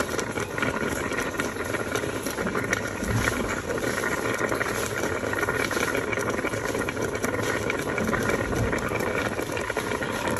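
Pot of cabbage soup with tomato-chile sauce and water heating on the stove: steady bubbling and crackling of the simmering liquid over a steady hum.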